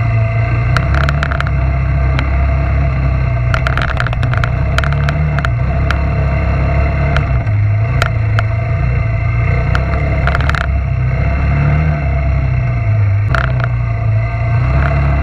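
Suzuki Quadrunner LT300 ATV's single-cylinder four-stroke engine running under way, its pitch rising and falling a little with the throttle, with scattered knocks and rattles from the machine jolting over the bumpy dirt trail.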